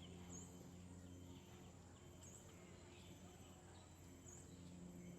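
Faint outdoor ambience: a thin, steady high insect drone, with a short high call repeating about every two seconds over a low hum.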